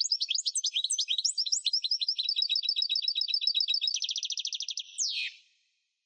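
European goldfinch singing: a quick run of high twittering notes that speeds into a rapid trill about four seconds in, then closes with one falling note.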